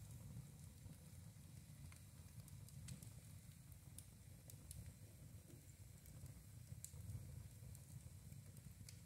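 Wood fire burning faintly, with scattered crackles and snaps a second or so apart over a low rumble.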